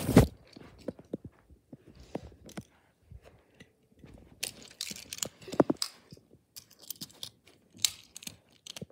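Handling noise on a phone's microphone as the phone is carried and moved about: scattered rubs, clicks and knocks, the loudest a knock just at the start, with a cluster about halfway through.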